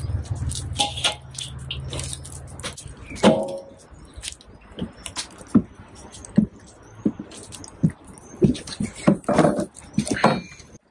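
Twig and log fire crackling in a metal fire pit, with irregular sharp snaps and a few heavier knocks as a split log goes in. A low rumble fills the first three seconds.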